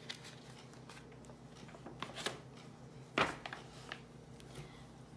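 A paper page of a paperback picture book being turned by hand: a few short rustles of paper, the loudest just after three seconds in.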